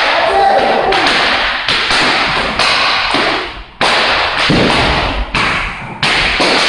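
Jiu-jitsu belts being whipped against a newly promoted blue belt's back in a promotion gauntlet: a run of sharp slapping cracks, roughly one a second, over voices.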